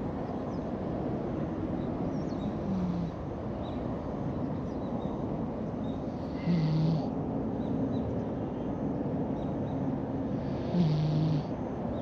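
Orange-and-white cat snoring in deep sleep: three short snores about four seconds apart, the last two louder.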